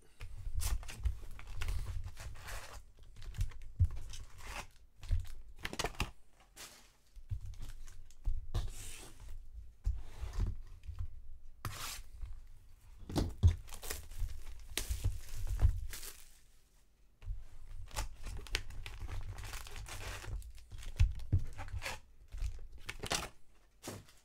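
Foil-wrapped trading card packs being handled and unpacked from their box: irregular crinkling and tearing of the wrappers, with dull knocks of the packs and box on the table.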